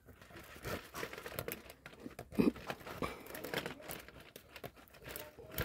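Dried palm-leaf strips crinkling and rustling as they are pulled and tucked into a woven chair cover, in irregular scratchy crackles, with one louder crackle about halfway through.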